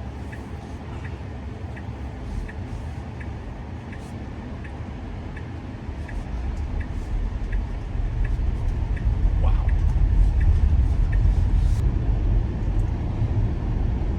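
A car driving, heard from inside: a steady low road and engine rumble that grows louder about halfway through as it picks up speed. In the first half there is a faint regular ticking about twice a second.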